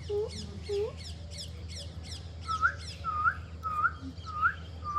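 Puppy whimpering in short, upward-hooked squeaks, about two a second, the calls jumping higher in pitch about halfway through. Rapid high chirps run alongside in the first half, over a steady low hum.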